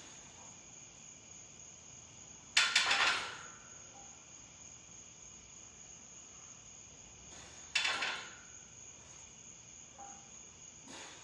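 Loaded barbell coming down onto a power rack's steel safety pins during pin press reps: a metallic clank with a short ring about two and a half seconds in, a quick rattle of several hits, and a second single clank about eight seconds in. A faint steady high-pitched whine runs underneath.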